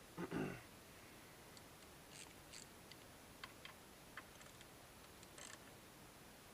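Faint, scattered metallic clicks and ticks of hand tools as bolts on the motorcycle's rear brake are torqued down, after one short louder creak near the start.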